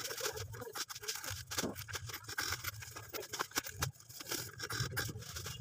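Plastic bags and snack packets crinkling and rustling as goods are handled and bagged at a counter, a run of small clicks and scrapes.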